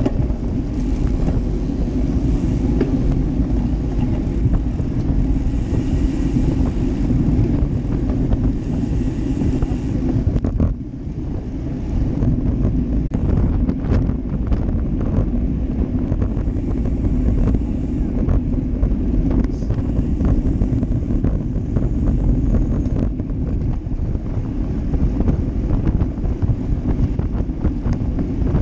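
Steady wind rush on a bike-mounted GoPro Hero Session's microphone, with road and tyre rumble from the moving road bike. The noise drops briefly about ten seconds in, then carries on.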